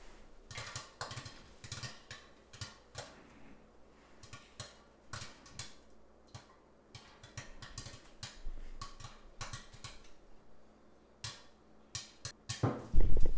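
Popcorn kernels popping in hot oil inside a lidded stockpot: scattered, irregular pops late in the batch, as the popping is dying down. A louder thump comes near the end.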